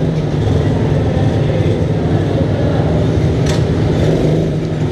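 Several minibike engines running at idle together, a steady low drone.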